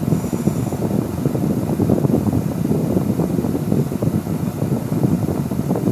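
Electric fan running close by, a steady rushing noise.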